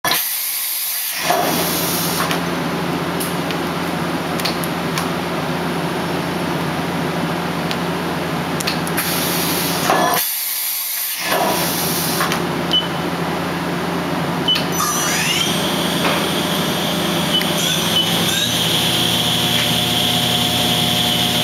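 1997 Mori-Seiki M1 Frontier CNC vertical machining center running under power: a steady mechanical hum with hiss. About fifteen seconds in, the spindle spins up with a rising whine that then holds at a high, steady pitch.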